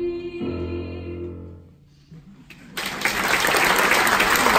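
A woman singing the final held note of a song, fading out; after a short hush, about three seconds in, the audience begins applauding, and the applause is the loudest sound.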